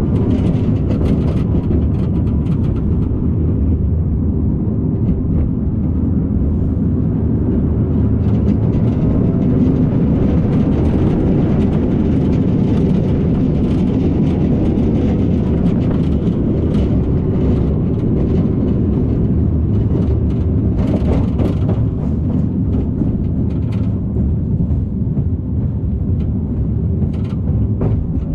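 Roller coaster train running along its track, heard from on board as a loud, steady rumble of wheels on rail.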